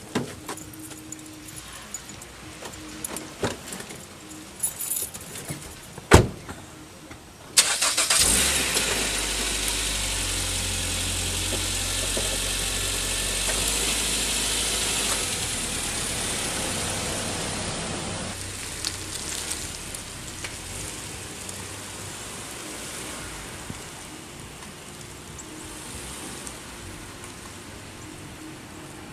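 SUV door handled with small clicks, then shut with a sharp thud about six seconds in; a second or so later the car's engine starts and runs loudly for about ten seconds before its sound drops away.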